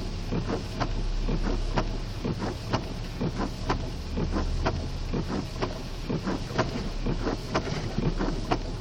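A car driving through floodwater in heavy rain, heard from inside: the engine runs with a low hum, rain and water spatter against the body, and a regular stroke about once a second fits the windshield wipers.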